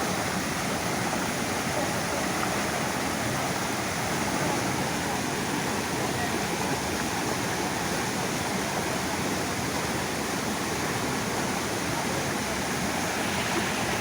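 Steady rush of water from a waterfall pouring over rocks, an even noise with no breaks.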